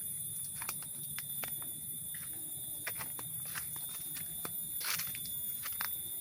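Footsteps on a mountain trail: a string of irregular short clicks and crunches, the loudest a brief scrape just before 5 s, over a steady high-pitched insect drone.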